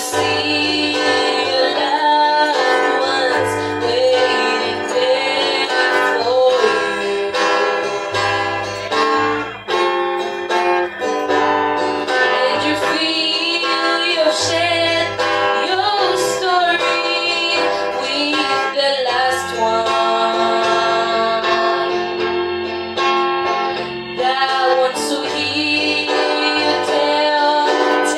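Two girls singing a gospel song together into microphones, with guitar accompaniment and a steady bass line.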